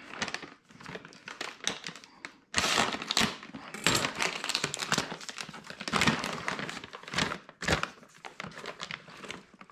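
Plastic bags of dry beans and rice being handled: crinkling and rustling in bursts, with short pauses between.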